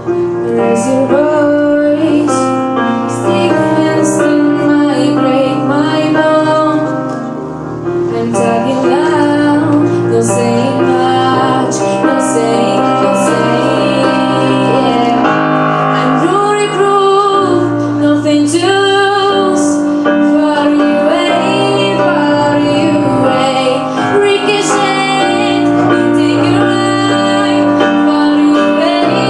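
A teenage girl singing a song through a microphone and PA, with a piano-led accompaniment under her voice.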